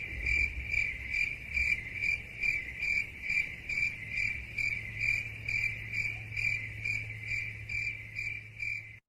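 Cricket chirping as a sound-effect clip: a high, evenly repeated chirp about two to three times a second over a faint low hum. It cuts off abruptly near the end.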